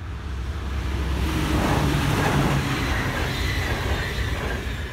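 NS ICMm electric intercity train passing the crossing at speed: the rush of wheels on rail and air swells to a peak about two seconds in, then fades as it goes by.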